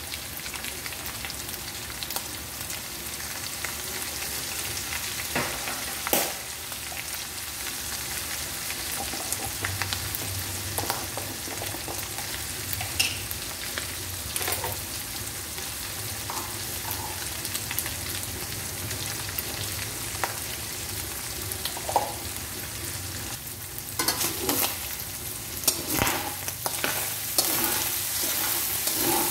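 Ground pork with garlic and onion sizzling steadily in hot oil in a wok, with scattered small pops. Near the end a metal spatula clinks and scrapes against the wok as the meat is stirred.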